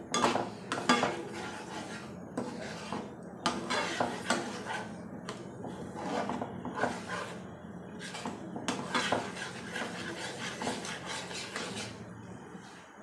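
Metal spatula scraping and stirring thick curry gravy in a frying pan, in repeated strokes over a steady low hum.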